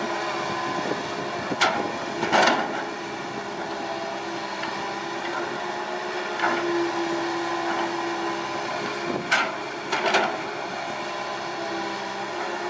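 Komatsu PC160 hydraulic excavator's diesel engine running steadily under digging load, with a held hydraulic whine partway through and a few short clanks as the bucket works the soil.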